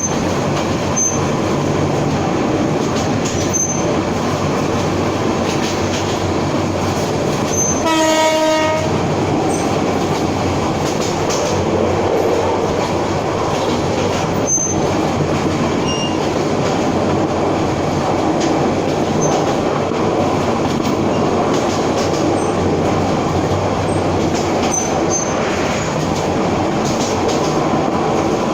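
Passenger train running along the rails, heard from on board: a steady rumble of wheels and carriages, with one short horn blast about eight seconds in.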